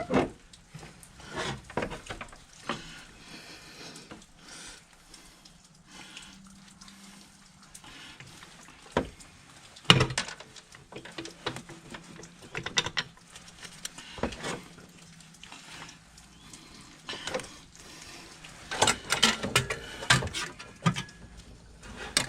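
Scattered clinks and knocks of hand tools and metal parts being handled in an engine bay, coming in irregular clusters, over a faint steady low hum.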